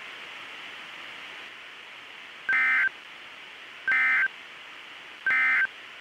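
Three short bursts of EAS/SAME digital data tones, about a second and a half apart, over a steady radio hiss: the Emergency Alert System end-of-message bursts that close the weather radio warning.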